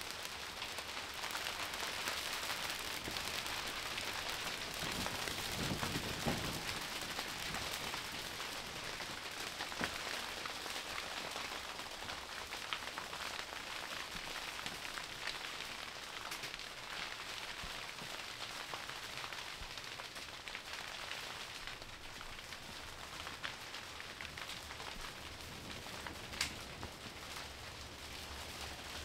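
Rain falling on the canvas roof of a wall tent, heard from inside as a steady hiss sprinkled with small ticks. It eases a little past the middle, and a few sharper ticks come near the end.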